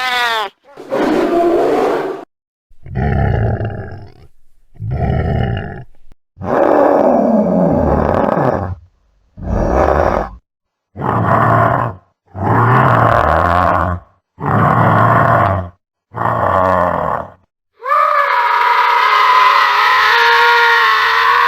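Gorilla roars: about nine separate loud, deep roars of one to two seconds each, with short silences between them. Near the end a long, unbroken, higher-pitched cry takes over.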